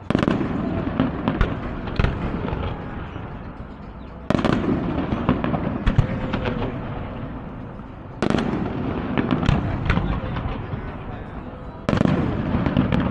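Fireworks going off: four big bursts about four seconds apart, each a sudden bang followed by crackling that slowly fades.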